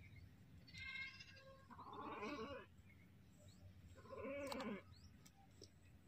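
Sheep bleating, three calls a second or two apart.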